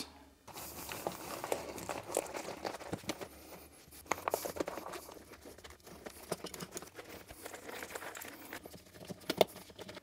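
A cloth rag dampened with isopropyl alcohol rubbing and rustling along a motorcycle wiring harness, wiping off adhesive residue left by electrical tape, with many light clicks and rattles as the wires and plastic connectors are handled.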